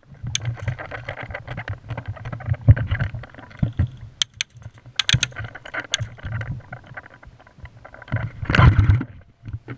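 Rustling and bumping on a worn GoPro's microphone as the wearer moves, with a low rumble, a few sharp clicks around the middle and a loud bump near the end.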